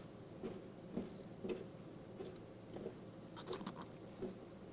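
A car's turn-signal indicator ticking inside the cabin, a faint, regular tick roughly every half second, with a brief rustle of sharper clicks about three and a half seconds in.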